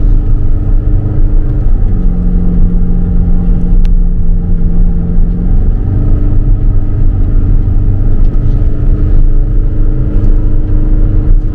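Cabin noise inside a Toyota RAV4 Hybrid driving while towing a caravan: a steady low road rumble under the engine's hum. The engine note drops about two seconds in and rises again about six seconds in.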